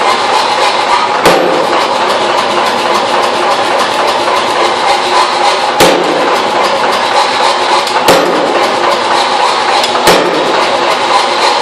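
Hammer blows on a top tool set on red-hot steel on the anvil, texturing the metal: four sharp strikes about two seconds apart, over a steady, loud mechanical noise.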